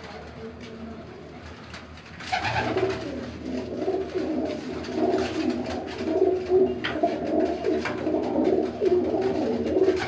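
Domestic pigeons cooing in a loft, many birds at once in overlapping low coos that swell up about two seconds in and go on thickly to the end.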